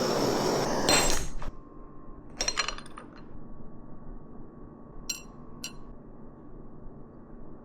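Kitchen sounds: a loud hiss that cuts off after about a second, then a few sharp clinks of hard objects knocking together, two of them close together near the middle.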